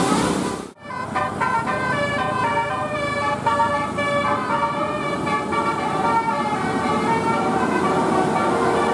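Bus telolet horn, a set of air horns playing a quick tune of changing notes. The sound cuts out briefly under a second in, then the tune carries on.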